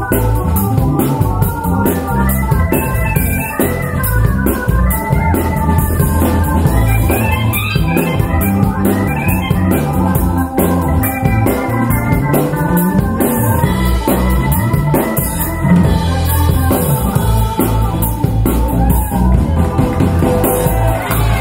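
Music with held keyboard chords and a steady drum beat, played back through a pair of Paradigm Monitor SE Atom two-way, rear-ported bookshelf speakers as a listening demo.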